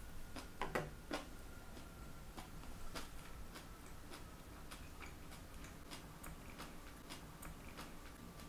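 Light ticking that repeats at a fairly even pace, about two to three ticks a second, in a quiet room. A few sharper clicks come about a second in, and a faint steady hum runs underneath.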